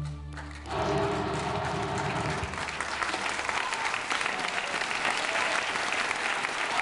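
A held final chord of clarinet and orchestra ends about half a second in, and a concert audience breaks into sustained applause.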